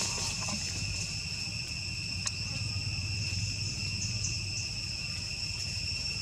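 Steady, high-pitched drone of insects in the forest, two unbroken tones held throughout, over a low rumble, with one faint click a little past two seconds in.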